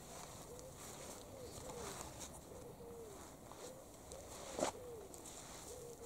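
A bird repeating short, low notes that each rise and fall, about two a second. A single sharp crack sounds about four and a half seconds in.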